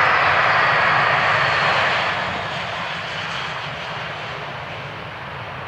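Jet airliner's engines passing close by, a loud rush with a high whine that falls slightly in pitch, then fading away from about two seconds in as the aircraft moves off.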